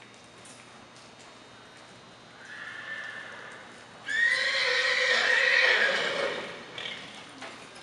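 A horse whinnying: a short, quieter call about two and a half seconds in, then a loud, long whinny starting about four seconds in and lasting over two seconds.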